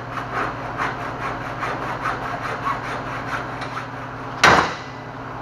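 Hacksaw cutting through the steel tubing of a go-kart frame, steady back-and-forth strokes about three a second, then a single loud sharp knock near the end.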